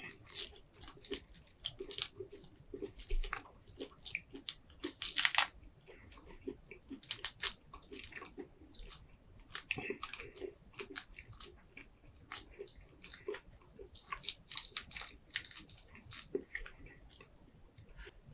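Close-miked eating sounds from a seafood boil: wet chewing and biting, in irregular clusters of sharp clicks and smacks.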